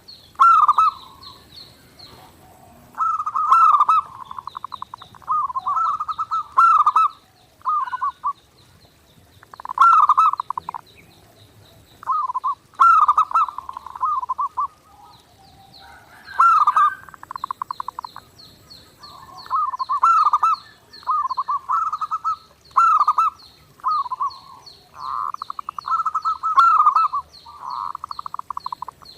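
Zebra dove (perkutut) cooing, a series of loud, trembling, purring coo phrases repeated every couple of seconds. A faint, fast high chirping runs underneath.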